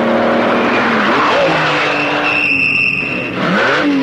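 Lamborghini Miura's V12 engine running hard, its pitch holding and then climbing and dropping as it is revved through the gears. A high, steady tyre squeal sounds for about a second in the middle.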